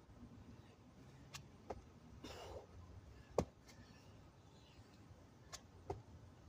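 Faint heavy breathing from a man between burpee reps, with a breathy exhale a little over two seconds in. A few sharp taps, the loudest about halfway through, and two lighter ones near the end as his hands and feet come down on concrete for a push-up.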